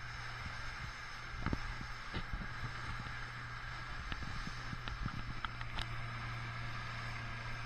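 Panga's outboard motor running steadily at speed, a low hum under the rush of water and wind, with a few sharp knocks.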